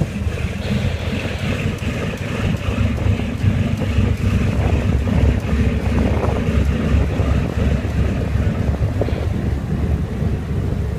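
Strong wind buffeting the microphone over the steady rumble of a lifeboat under way at sea, with engine and water noise beneath.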